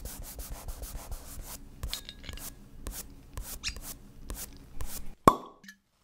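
Title-card sound effects: a run of short scratchy strokes, quick at first and then more scattered, ending in one loud sharp pop that rings briefly.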